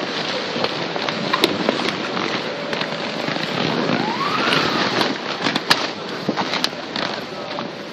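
Handling noise from the vinyl of an inflatable obstacle course rubbing, rustling and crackling against the camera, with many sharp clicks and a short rising squeal about four seconds in.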